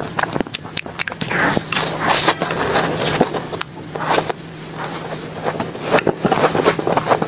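Close-up eating sounds from a person biting and chewing a coconut-flake-coated ice cream bar: many wet mouth clicks and smacks. Near the middle she sucks the last ice cream off the wooden stick.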